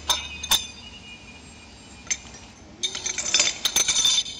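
Sharp metallic clinks of steel pipe sections and thin spacer rods being set together on a steel bench to fit up a pipe joint for tack welding. About three seconds in, a spell of rapid crackling clicks follows.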